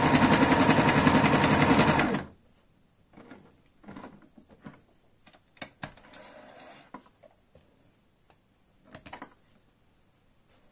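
Frister & Rossmann Cub 4 electric sewing machine running fast and steadily, stitching a zigzag, then stopping suddenly about two seconds in. After that come scattered small clicks and a short rustle as the fabric is pulled out and handled.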